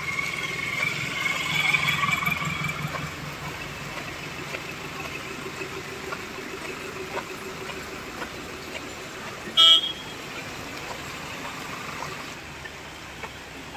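Steady rain falling, with a motor vehicle passing in the first few seconds and one short, loud horn beep about ten seconds in.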